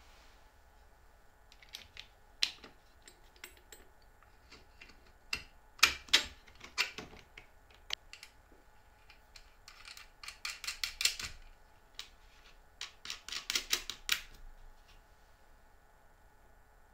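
Wooden parts and metal fittings of a handmade plywood drill stand knocking and clicking as a curved wooden feed lever is fitted to it by hand. Scattered sharp clicks, then two runs of quick rattling clicks about a second long each, about ten seconds in and again about three seconds later.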